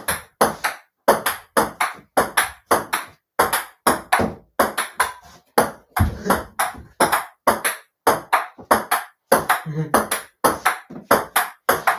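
Table-tennis rally: a ping-pong ball clicking off paddles and bouncing on a small folding table, about three clicks a second at an even pace, with no break in play.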